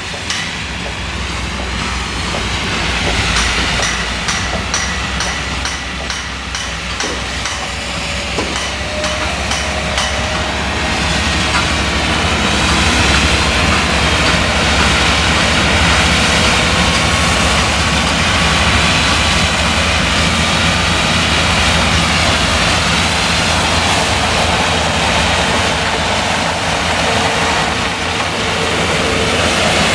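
New Holland CX combine harvester running under load while threshing maize with an eight-row Geringhoff corn header. It makes a dense, steady mechanical roar with rapid clicking through the first several seconds, and grows louder as the machine comes closer.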